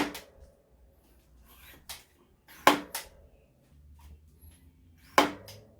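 Three sharp metallic taps, each with a brief ring, about two and a half seconds apart, from handling a mountain bike's rear wheel while its rim alignment is checked.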